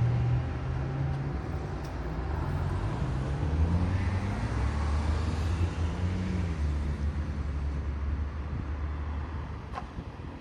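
Road traffic: vehicle engines running and passing, their engine note rising and falling, easing off a little near the end.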